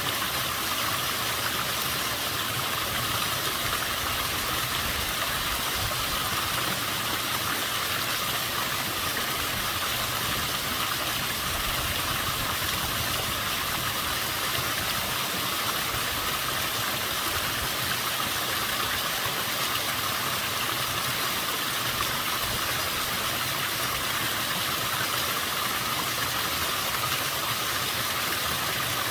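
Waterfall pouring steadily at fairly low flow, an even rushing noise with no change in level.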